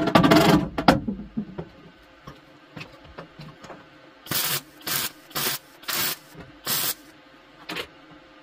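A few loud knocks of a hammer on the steel fender edge, then short bursts from a MIG welder tacking the sheet-metal seam: five tacks about half a second apart, and one more near the end.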